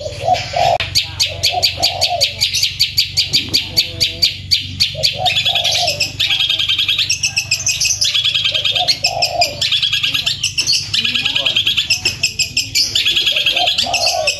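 Long-tailed shrike (cendet) singing loudly in a fast, unbroken run of sharp repeated high notes, the rapid 'roll' of a bird in full song. Every few seconds the run is broken by lower, harsher notes.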